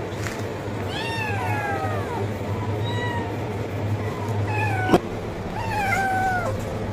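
A kitten meowing loudly for food: four drawn-out meows, each falling in pitch. A sharp click sounds about five seconds in.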